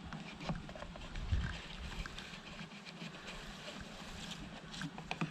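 Honeybees buzzing in a steady low hum while their package is handled, with scattered clicks and knocks and a low thump about a second in.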